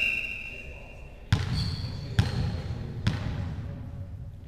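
A high whistle note fades out over the first second. Then a volleyball is bounced on the sports hall floor three times, about a second apart, each thud echoing in the hall: a server bouncing the ball before serving.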